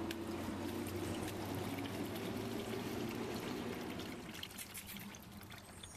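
Warm engine oil draining in a steady stream from the open drain plug into a drain pan, growing a little quieter toward the end.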